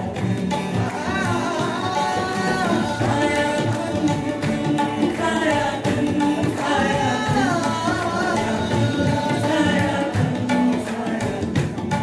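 Live Indian folk ensemble performing: a sung melody with gliding ornaments over tabla, harmonium and strummed acoustic guitar.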